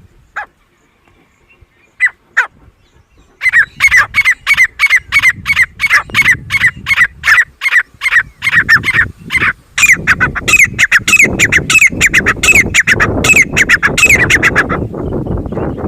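Grey francolin calling: a few single notes, then a long run of shrill, evenly repeated notes at about three a second that grows denser and harsher before breaking off about a second before the end.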